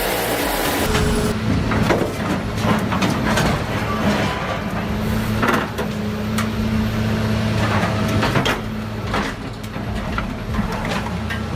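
Heavy shredding machine running with a steady low hum, broken by repeated sharp cracks and knocks as material is torn apart. The sound changes abruptly about a second in.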